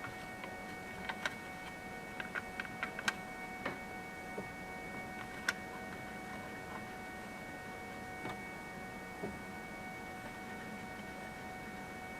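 FlashForge Adventurer 3 3D printer running with a steady electrical whine of several high tones. A quick series of light clicks and taps comes in the first few seconds, with a sharper click about five seconds in.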